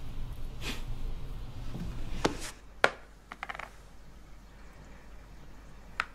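Low room hum with soft rustles, then sharp taps and clicks of game pieces being moved and set down on a Ludo-style board game. There is one loud tap a little under three seconds in, a short cluster of clicks just after it, and two more taps near the end.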